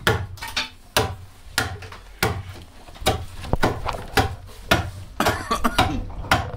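An adze (keser) chopping into mulberry wood to hollow out a saz body: a run of sharp, woody chopping strikes about two a second, with a quicker flurry of blows near the end.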